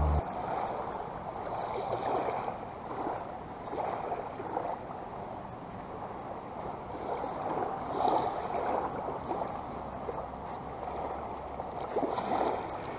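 Small waves washing and lapping at the shoreline, swelling and fading every second or two.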